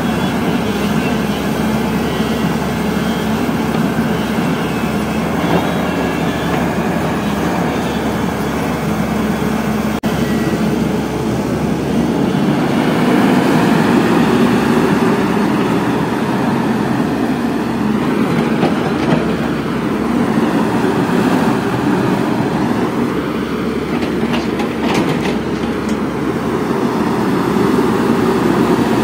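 Caterpillar 320D excavator's six-cylinder diesel engine running under load as it digs, with the engine note swelling as the boom and bucket work. A few clanks come a little before the end.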